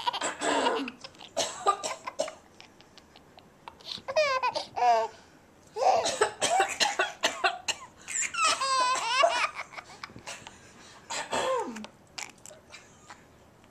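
A baby laughing in about six separate bursts of high, wavering giggles, set off by an adult's coughs.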